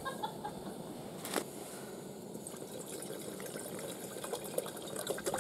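Water poured from a plastic bottle into a cook pot on a canister backpacking stove, with a sharp click about a second in and a few light clicks near the end.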